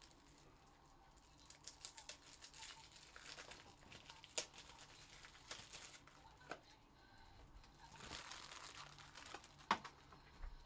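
Faint crinkling and rustling, with a few sharp clicks, the loudest nearly ten seconds in.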